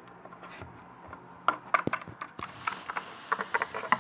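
Small plastic toy figures tapping and clicking on a wooden tabletop as they are hopped along by hand: a run of light taps beginning about one and a half seconds in, with one sharper knock among them.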